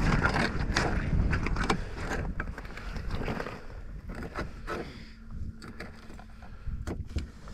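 Wind rumbling on the microphone, with scattered clicks, knocks and scrapes of a knife and hands cutting a bait fish on a side-by-side's tailgate.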